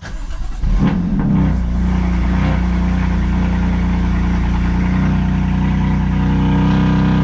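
BMW M3 engine cold start: the engine catches and flares up in revs about a second in, then settles into a steady fast cold idle.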